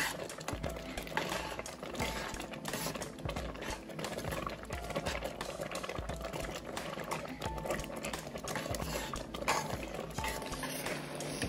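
Thick grated-carrot and milk mixture bubbling with frequent small pops in a pressure-cooker pan while a slotted spoon stirs and scrapes through it; the milk is being cooked down toward khoya.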